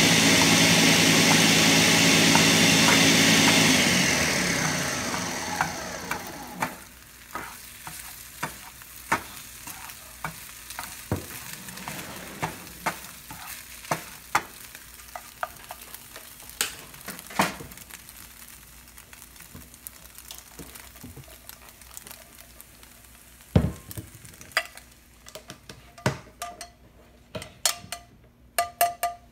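A loud steady droning hum with a high whine fades away over the first few seconds. After it, a slotted plastic spatula scrapes and taps against a nonstick frying pan in irregular clicks. A flurry of louder knocks comes near the end as the pan is tipped out.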